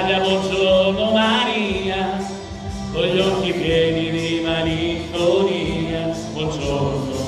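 A man singing over backing music, played through a portable loudspeaker with flashing lights.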